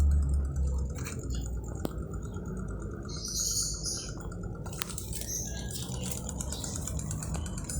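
Homemade battery-powered fan, a small mixer motor spinning a Ventisol fan propeller, running with a steady whir and a rattle from its loose, crooked shaft. A deeper hum is strong in the first second, then drops lower.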